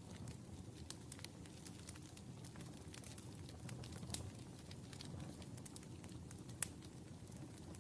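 Wood fire burning in a fireplace: a low, steady rumble of flames with frequent small crackles, and one sharper pop about two-thirds of the way through.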